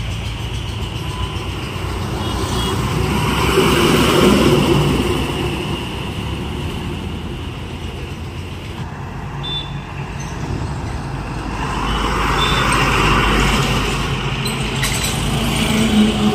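Loaded diesel lorries passing close by on a highway, engine drone and tyre noise swelling and fading as each goes past, twice.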